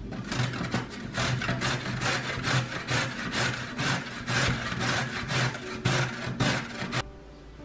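A raw carrot rubbed up and down against a stainless-steel box grater, a rasping scrape about three strokes a second, stopping suddenly near the end.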